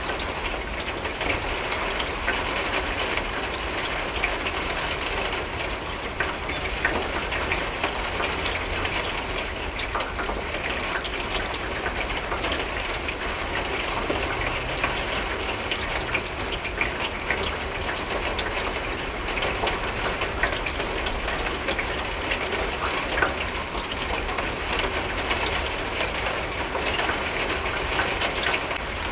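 Steady rain on a window, many drops tapping against the glass in a dense continuous patter, over a steady low rumble.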